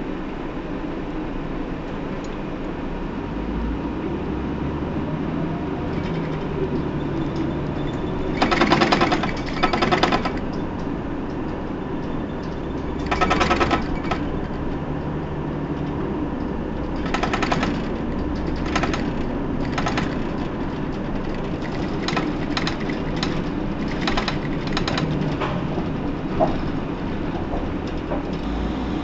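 Onboard running sound of a Hino PDG-KV234N2 (Blue Ribbon II) city bus: the diesel engine drones steadily, its pitch shifting as the bus changes speed. Several short bursts of rapid rattling clatter come through, the loudest about a third of the way in.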